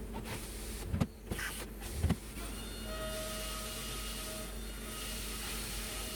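Hurco BX40i CNC machining centre running, with two short clunks about one and two seconds in, then a steady whine.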